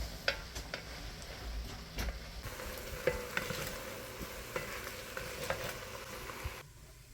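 Ground beef with onions sizzling in a frying pan while a spoon stirs it, with scattered clicks and scrapes of the spoon against the pan. The sizzle cuts off sharply near the end.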